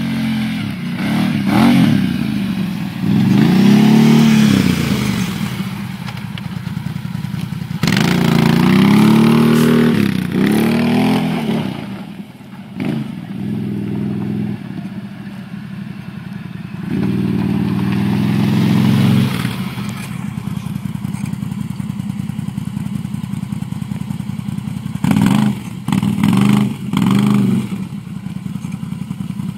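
Can-Am Renegade 800 quad's V-twin engine revving hard in repeated bursts, the revs sweeping up and down as it climbs and rides off-road, with lower steady running between and three quick throttle blips near the end.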